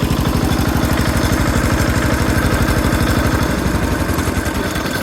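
Yanmar HD800 hand bulldozer's engine running with a fast, even chugging beat that eases off slightly near the end.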